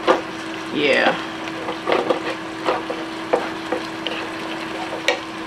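Wooden spatula stirring and knocking in a nonstick skillet of browning ground crumbles in tomato sauce, with a light sizzle from the pan; a handful of sharp taps spaced a second or so apart.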